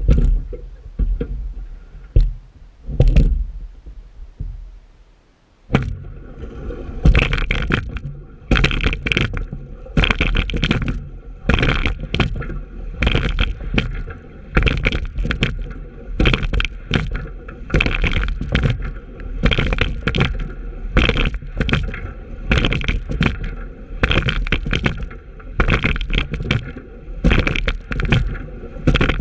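Rowing shell under way, the oars clunking in their oarlocks and the blades splashing at each stroke over water rushing along the hull. The strokes fall into a steady rhythm of about one every 1.4 seconds from about six seconds in.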